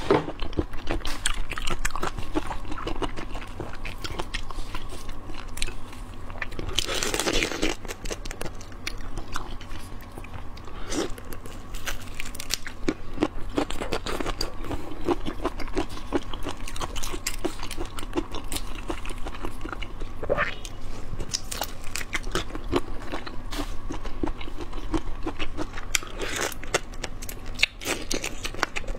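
Close-miked eating of shrimp: crunching and chewing, the shells cracking between the teeth in dense, irregular clicks, with a louder, noisier burst about seven seconds in. A faint steady hum runs underneath.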